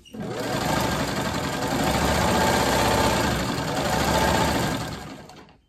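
Vintage black sewing machine running at speed, stitching strips of fabric. It starts suddenly, picks up speed over the first second, and runs down and stops near the end.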